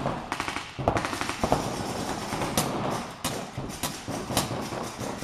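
Paintball markers firing reusable rubber reballs in rapid strings, with sharper single shots scattered through.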